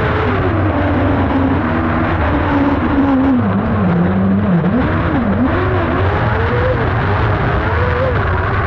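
Kart cross buggy's motorcycle engine heard from inside the cockpit under racing load. The revs sink lowest around the middle, then rise and fall several times as the throttle is worked, and climb again near the end, over a steady low rumble.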